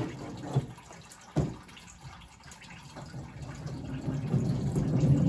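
Two sharp knocks, then liquid splashing into a container from about halfway in, growing louder: engine coolant draining from a Toyota Corolla's radiator into a bucket.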